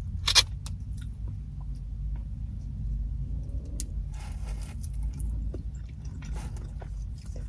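Close-up chewing and crunching of crispy food, with small wet mouth clicks, over a steady low rumble.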